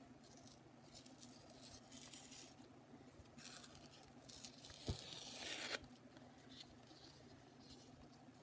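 Sheet of painted watercolor paper being torn by hand. There are a few short rips, then a longer, louder tear about three to six seconds in, with one sharp tick partway through it.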